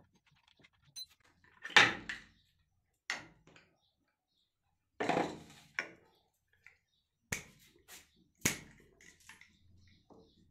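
A series of separate metal clunks and knocks from air rifle parts being handled, about six of them, the loudest about two seconds in.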